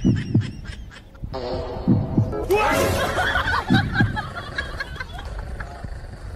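Low paired thumps like a heartbeat, coming about every two seconds, picked up by a karaoke microphone pressed against a small dog's body. A busier stretch of chattering, laugh-like sound comes in the middle.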